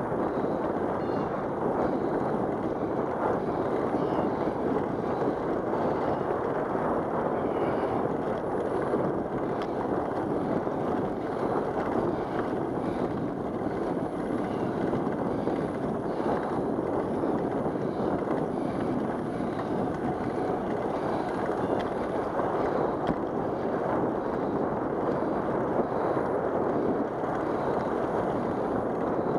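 Steady wind rush over the microphone of a camera riding on a moving bicycle.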